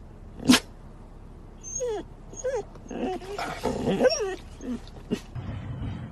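Pit bull-type dogs whining and yowling in a run of short calls that slide up and down in pitch between about two and five seconds in. A sharp click comes about half a second in, and another just after five seconds.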